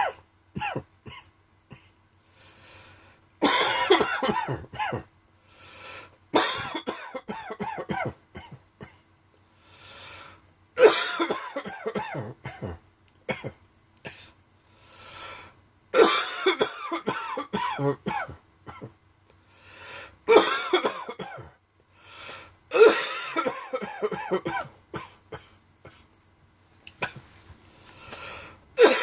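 A person's dry coughing fit. The coughs come in bouts every few seconds, each a run of several quick, harsh coughs, with short quieter gaps between.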